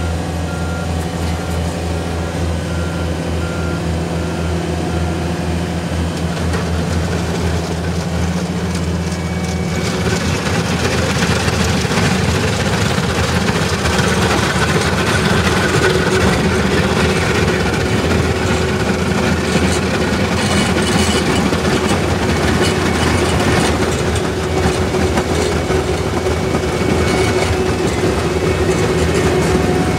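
Skid-steer loader's engine running under load while its cold planer attachment grinds asphalt along a gutter edge. About ten seconds in, the steady engine hum gives way to a louder, rougher grinding.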